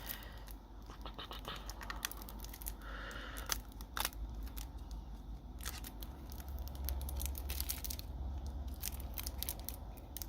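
Hands opening a trading card deck's packaging: irregular small clicks, scrapes and plastic rustling as the wrapper and cards are handled.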